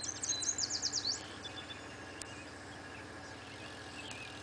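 A songbird sings a quick run of high, slurred notes lasting about a second. Fainter chirps from other birds follow over a steady low hum.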